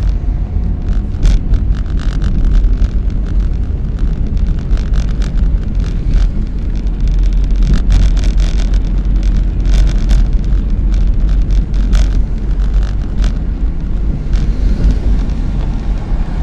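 An old car driving, heard from inside its cabin: a steady low engine and road rumble with frequent short clicks and rattles.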